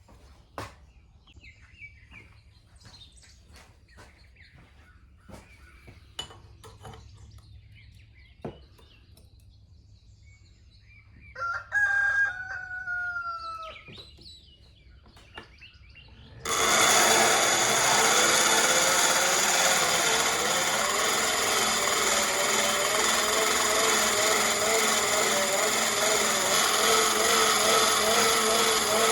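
A rooster crows once, a falling call about twelve seconds in. About sixteen seconds in, a bench grinding wheel starts abruptly and runs steadily to the end, grinding a bevel onto a dull plane iron.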